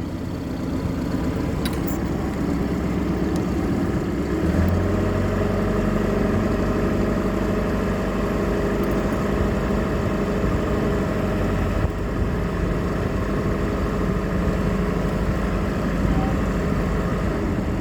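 Ford 2.3-litre four-cylinder boat engine running under way, picking up throttle about four and a half seconds in and then holding a steady pitch. The engine is overheating, at around 230 degrees.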